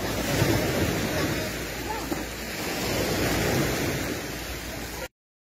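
Steady rush of sea surf with wind buffeting the microphone, which cuts off suddenly to dead silence near the end.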